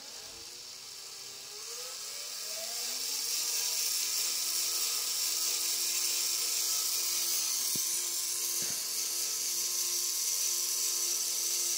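Small DC electric motor driving the slow-motion gear of a telescope's equatorial mount, whirring up in pitch and loudness over the first few seconds as its speed controller is turned up. It then runs steadily at the faster speed with a high-pitched whir.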